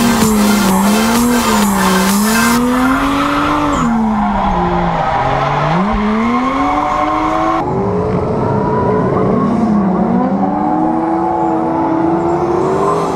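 Drift car engine revving up and down repeatedly as the car slides, with tires squealing on the pavement, heard from inside the car.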